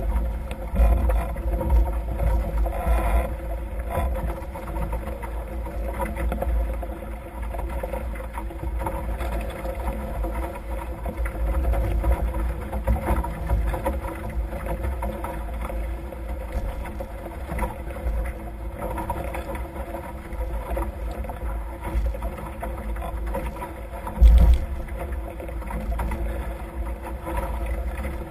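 Wind buffeting the microphone of a camera mounted on a Nacra F18 sailing catamaran moving fast under gennaker, with water rushing past the hulls. The rumble is continuous, with one sharp, louder gust near the end.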